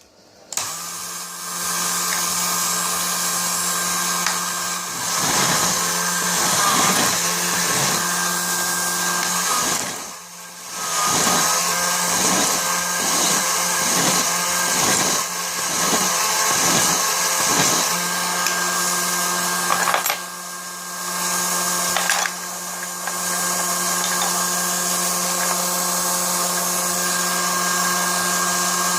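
Drill motor of a homemade mini lathe, a cordless drill's motor and gearbox run from a power supply, spinning steadily. Through the middle come repeated strokes, about one and a half a second, as a small lock pin is cut down. The motor briefly drops out twice, about 10 and 20 seconds in.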